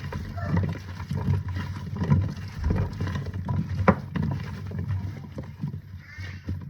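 Vegetables tossed with a utensil in a casserole dish: irregular clinks, knocks and scraping against the dish, with one sharp clink about four seconds in.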